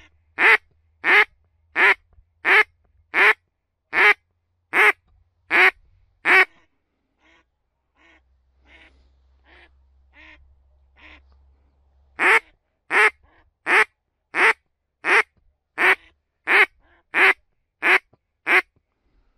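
Duck quacking in long, evenly spaced series, about one and a half quacks a second: some ten loud quacks, a few fainter ones, then another run of some ten loud quacks.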